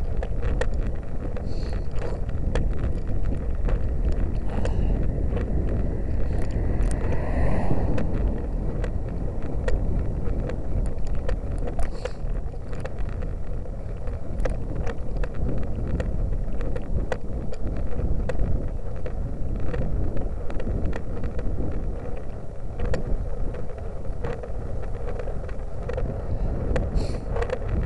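Wind rumbling over the microphone of a camera mounted on a bicycle climbing a road, with frequent small clicks and rattles from the moving bike.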